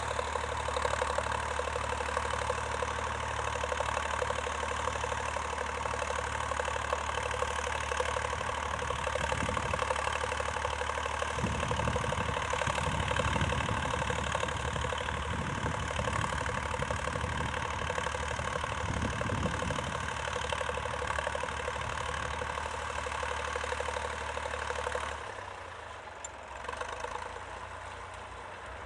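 Vintage tractor engine running steadily at a low, even speed, with a low uneven rumble added in the middle. About 25 seconds in, the engine sound drops away and gets quieter.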